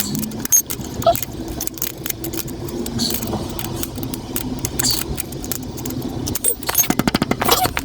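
Irregular metallic clinking and rattling of metal parts and tools during motorcycle chain work, with a quick run of rapid clicks near the end.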